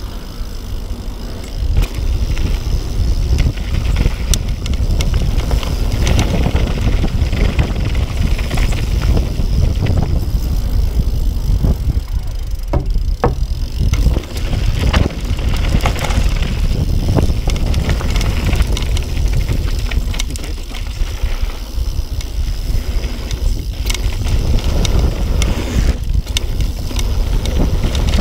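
Yeti SB6 mountain bike descending a dirt downhill trail at speed: a steady low rumble of tyres on packed dirt and wind on the camera microphone, with frequent sharp clicks and rattles from the bike over bumps.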